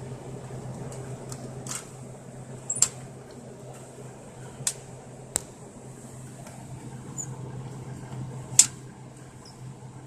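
Steady low hum of a small motor, with five sharp clicks scattered through it.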